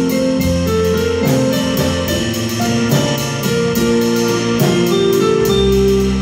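Two electronic keyboards play chords and low bass notes in an instrumental passage, with a drum kit keeping a steady beat on the cymbals.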